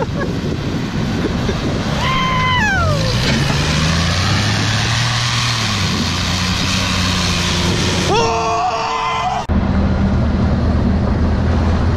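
Pickup truck engine revving as the truck spins and slides in a grass field, its pitch dropping a couple of seconds in and climbing sharply near the end. About nine and a half seconds in it switches abruptly to the steady drone of the truck driving, heard from the open bed with wind rushing past.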